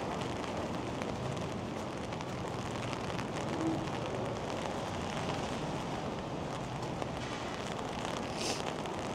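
Steady rain with the wash of wet city street traffic, and a brief hiss about eight and a half seconds in.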